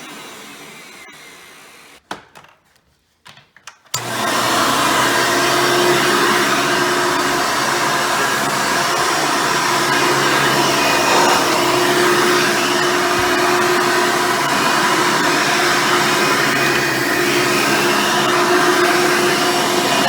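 Hoover Elite upright vacuum with its original 7-amp motor and 7-blade fan winding down after being switched off, fading over about two seconds. A few clicks follow in near quiet, then it is switched back on about four seconds in and runs steadily with a constant hum.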